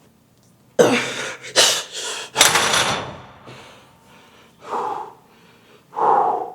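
A man breathing hard from exertion: three forceful hissing exhales in quick succession about a second in, then two shorter voiced groans near the end.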